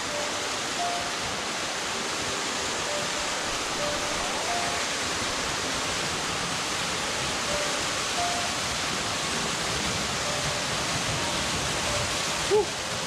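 Waterfall pouring onto rocks close by: a steady, even rush of falling water, with a short sharp sound near the end.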